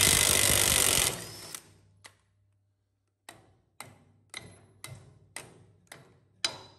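Ryobi cordless impact wrench hammering on a nut for about a second, then winding down and stopping. After a short pause comes a steady run of sharp metallic clicks, about two a second.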